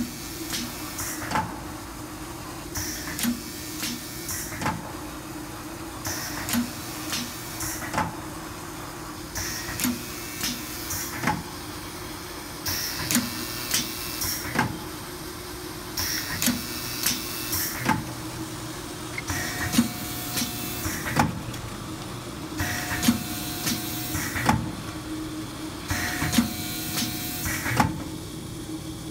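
Vertical form-fill-seal bagging machine with a piston filler running at 18 bags a minute: every three seconds or so a cycle of sharp clacks and short hisses of air from the pneumatic sealing jaws and filler, over a steady hum. In the later cycles a brief steady tone sounds as well.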